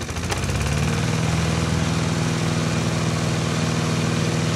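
Small engine running steadily with a fast even pulse; it swells up over the first second, then holds.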